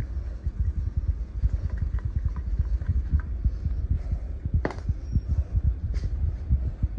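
Irregular low thumping and rumble of a handheld phone being moved about, with a single sharp clack about two-thirds of the way in.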